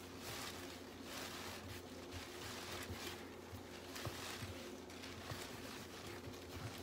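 Faint soft swishing and rubbing of hands working a portion of bread dough on a floured countertop, over a low steady hum.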